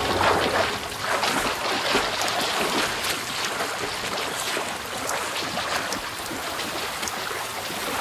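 Heavy rain falling steadily: a dense hiss of raindrops spattering over open ground.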